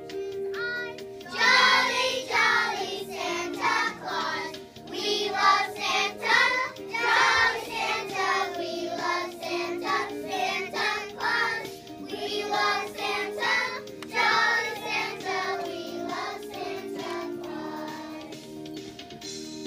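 A group of young children singing a Christmas song together over backing music. The singing comes in about a second in and thins out near the end, leaving the music.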